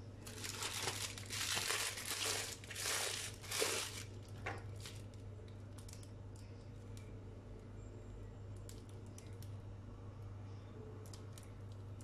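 Plastic cheese packaging crinkling loudly in a run of bursts as it is handled and opened, for about four seconds, followed by a few faint clicks.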